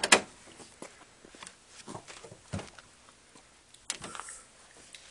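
Scattered light clicks, knocks and footsteps from someone walking around with a handheld phone, with a pair of sharper knocks right at the start and a cluster about four seconds in. No engine is running.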